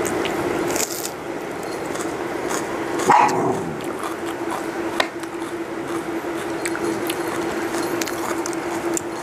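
A dog whines once about three seconds in, a short pitched call, over a steady low hum with light clicks and taps throughout.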